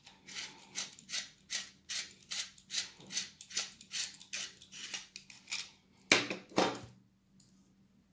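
Colored pencil being sharpened by hand in a small pencil sharpener: a rhythmic scraping, about two or three strokes a second, ending with two louder strokes about three-quarters of the way through.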